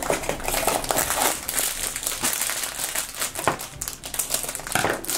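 Foil blind bag crinkling as it is pulled from a cardboard box and handled, then cut open with small scissors, with a few sharp clicks near the end.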